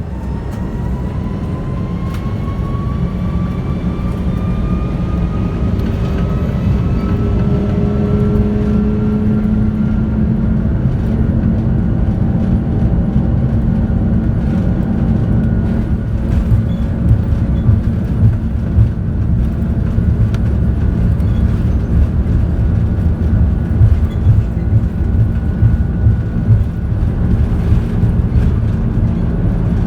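Airbus A330-300's Rolls-Royce Trent 700 engines spooling up, heard from inside the cabin: a whine that rises in pitch over a heavy rumble that keeps getting louder. In the second half the rumble turns bumpy and uneven, as on a takeoff roll down the runway.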